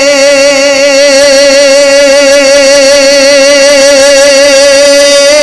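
Male naat reciter's voice holding one long sung note with a slow, even vibrato and no instruments.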